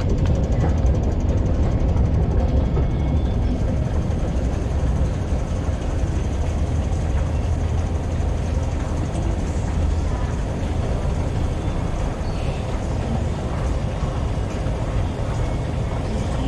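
A long metro-station escalator running, heard from one of its moving steps as a steady low rumble.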